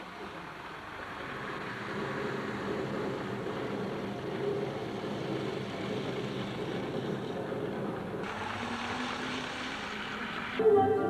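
Model train running on its layout: a steady whirring rumble from its motor and wheels on the track, getting louder about two seconds in. Music with singing starts just before the end.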